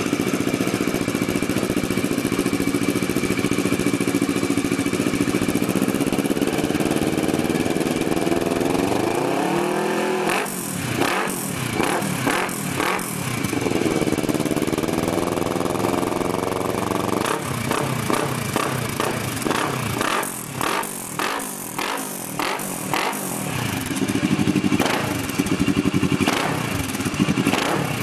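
Kawasaki ER-6n's parallel-twin engine running through a RONCAR Coyote TRS trioval aftermarket exhaust. It idles steadily, then is revved with quick throttle blips from about ten seconds in. Around the middle there is a slower climb in revs, then another run of blips, before it settles back to a steady run.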